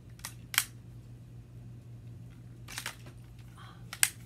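Sharp hard-plastic clicks from a Power Rangers Ninja Steel battle morpher toy being handled, four of them spread out, the loudest about half a second in and near the end, over a low steady hum.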